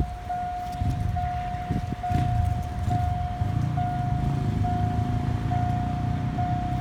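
Level-crossing warning signal sounding a steady electronic tone, broken by a short gap a little more often than once a second, over a low engine rumble.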